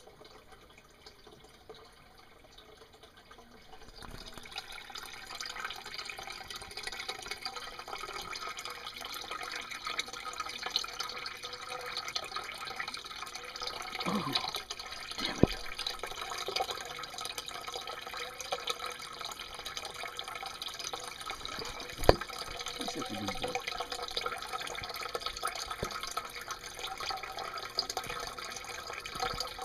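Water trickling and splashing in a turtle tank, starting about four seconds in and running steadily, with two sharp knocks, the louder one near the end of the second third.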